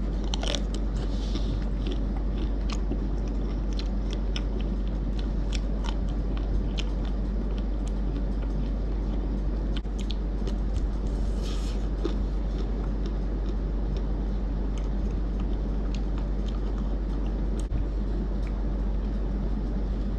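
Biting into and chewing a Magnum cookies and cream ice cream bar: the hard white chocolate coating with cookie pieces cracks in many small crisp snaps, most of them in the first half. A steady low hum runs underneath.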